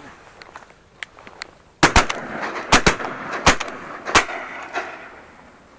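Hunting shotguns firing a rapid volley of about six shots in under three seconds, some in quick pairs, with the reports echoing on after them.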